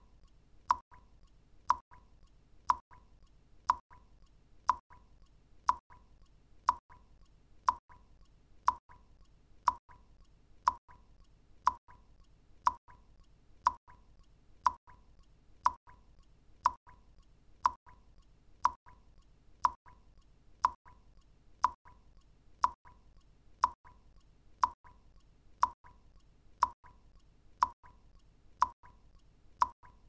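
Water drops plopping into water one at a time, evenly about once a second, each with a short ringing tone.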